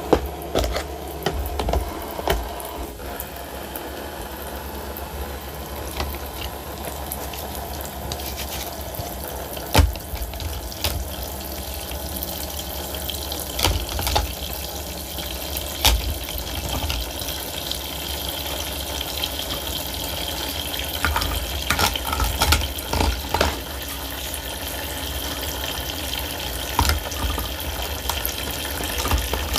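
Water running and splashing in a toy plastic kitchen sink as a small cloth is rubbed and swished in the basin, with a few sharp clicks of plastic toy pieces.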